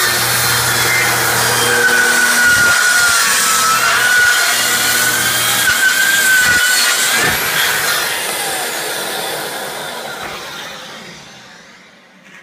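Festool TS 75 plunge-cut track saw ripping through stock about 2.5 inches thick. Its motor runs loud and steady under load with a wavering whine, then winds down over the last few seconds.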